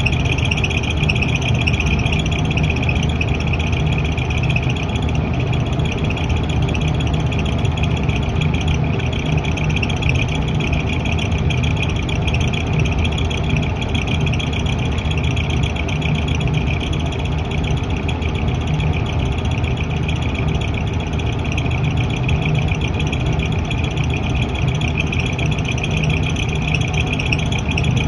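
Exhaust fan running with an abnormal noise: a steady low hum with a steady high-pitched whine above it.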